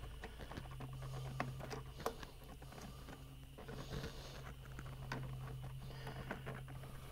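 Light, scattered clicks and scrapes of fingers prying rubber intake-port gaskets loose from a GM 3.6 LLT V6 cylinder head. A steady low hum comes in about half a second in and continues underneath.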